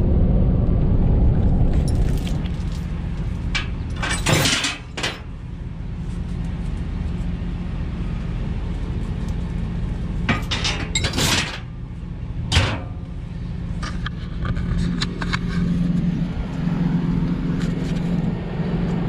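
Diesel pickup idling steadily while a flatbed trailer is hitched to it, with sharp metal clanks and rattles from the hitch: a cluster about four to five seconds in, more around ten to thirteen seconds in, and lighter ticks after.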